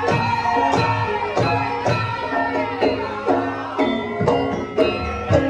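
Javanese gamelan music for a lengger dance: ringing metallophone tones with regular hand-drum strokes, about two a second, whose pitch bends downward.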